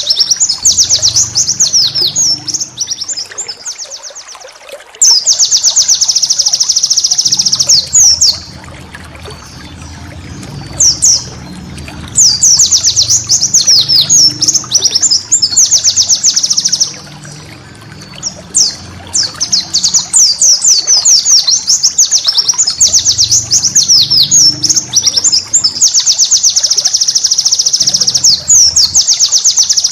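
White-eye (pleci) singing in fast, high twittering runs of rapidly repeated notes, in bursts of two to three seconds with short pauses between them. A faint low hum runs underneath.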